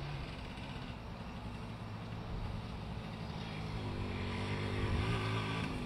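Motorcycle engine running as the bike rides closer, growing steadily louder, its note wavering slightly near the end.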